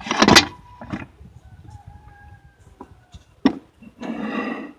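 Powerglide transmission's front pump being worked out of the case: a short squeal as metal drags at the start, a faint thin squeak, a sharp knock about three and a half seconds in, then a brief scraping rasp near the end.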